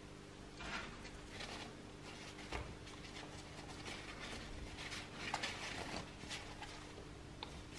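Faint rustling and rubbing of gloved hands wiping a Tonka T6 toy bulldozer's pressed-steel body with a paper towel, in short scattered strokes with a few light knocks of handling, and a short click near the end.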